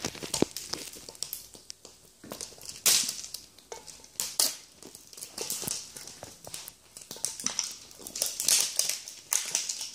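Plastic wrapping on toy surprise eggs crinkling and tearing in irregular bursts as it is peeled off by hand.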